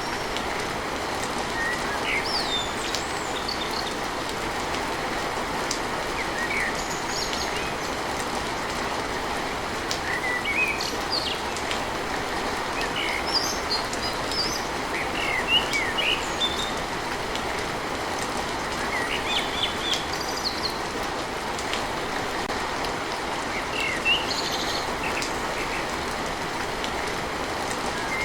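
Steady rain falling on a tin roof, an even, continuous patter, with birds chirping here and there throughout.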